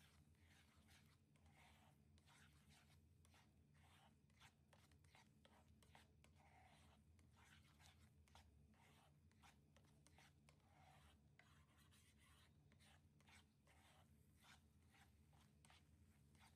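Near silence: very faint, rapid scratching and light tapping over a low steady hum.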